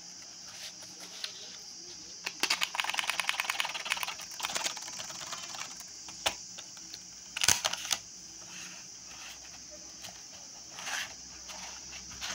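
Hands unpacking a boxed SSD, sliding its clear plastic tray out of the cardboard box: a rapid run of plastic clicks and rattles about two seconds in, then scattered clicks, a sharp crackle of plastic and soft rustling.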